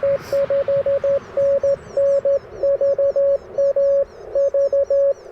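Morse code (CW) from the Icom IC-705 transceiver: a single steady tone keyed quickly in dots and dashes, with short gaps between characters.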